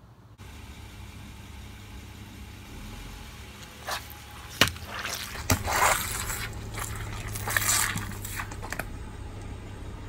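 A car's tire rolls over water-filled plastic splash toys, crushing them, over the low steady hum of the car's engine running. Sharp plastic snaps come about four seconds in, then crackling and water squirting and splashing onto wet concrete through the middle.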